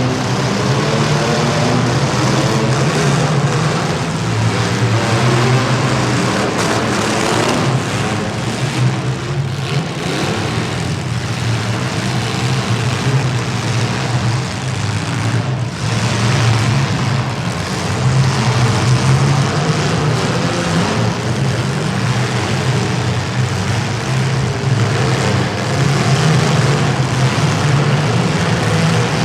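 Several compact demolition-derby cars' engines running hard and revving together, with occasional knocks of cars colliding.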